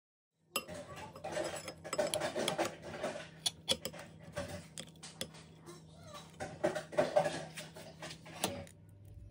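Metal serving spoon scraping and clinking against a glass baking dish as sliced baked potatoes are lifted out, a busy run of sharp clicks and scrapes that stops shortly before the end.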